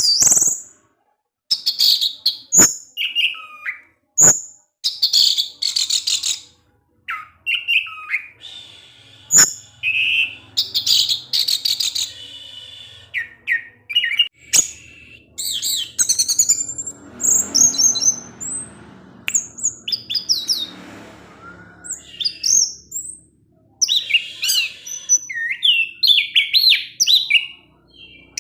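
Orange-headed thrush (anis merah) singing its fast 'ngecis' chirping song: bursts of rapid high chirps and warbled phrases with short pauses between them, and a few sharp clicks.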